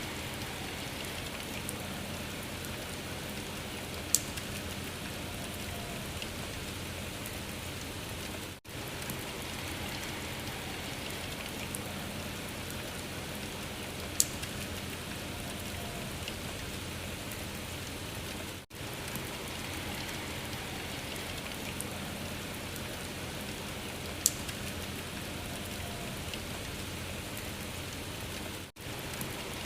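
Steady rain-like hiss and patter. A short recording loops every ten seconds, so the level dips briefly at each loop seam, and a single sharp tick comes four seconds into each pass, three times in all.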